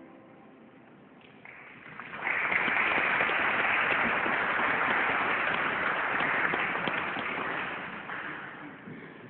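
Audience applauding: the clapping starts about a second and a half in, swells quickly, holds, then dies away near the end.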